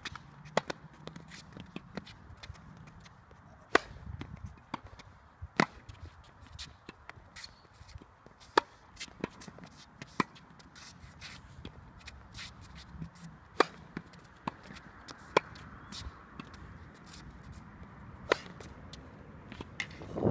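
Tennis ball struck by a racket in a rally: about seven sharp strikes, every two to three seconds. Fainter ticks and shoe scuffs on the hard court fall between the strikes.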